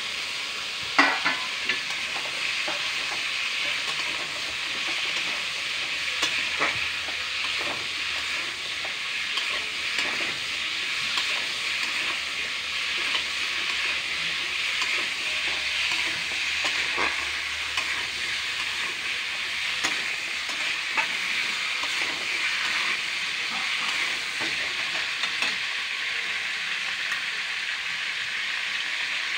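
Chopped cucumber, green beans and potato sizzling in hot oil in a steel kadhai while a steel spatula stirs them, scraping and clinking against the pan. The sharpest knock comes about a second in.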